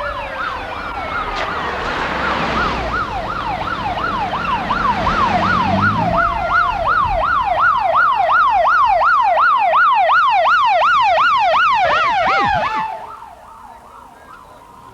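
Vehicle siren yelping in rapid up-and-down sweeps, about three a second, then winding down and cutting off near the end. A low rumble is heard under it early on.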